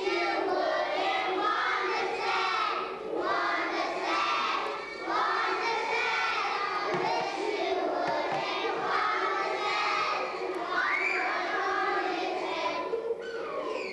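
A group of preschool-age children singing a song together; the singing stops about a second before the end.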